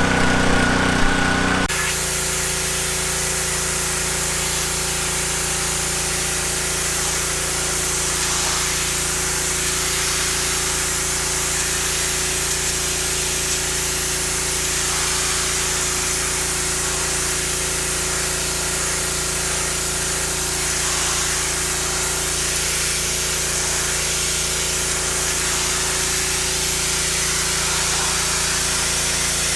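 Power Stroke 3200 PSI gas pressure washer running steadily, its engine hum under the loud, even hiss of the high-pressure water jet blasting grime off a surface. The spray starts suddenly about two seconds in.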